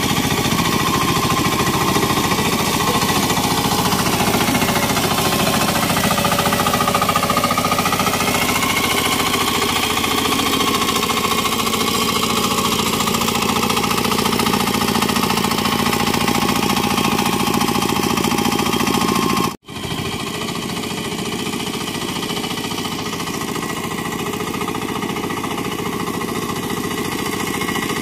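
Small engine of a turtle tiller (floating hand tractor) running steadily under load as it churns through flooded paddy mud. Its pitch dips and recovers a few seconds in. It cuts out abruptly about two-thirds of the way through, then continues slightly quieter.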